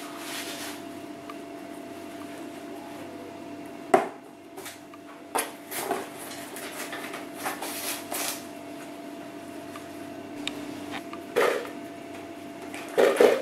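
Puppies playing on a tile floor: scattered short knocks, scrapes and rustles as they tumble over blankets and bump a cardboard box, with a sharp knock about four seconds in and another pair near the end, over a steady low hum.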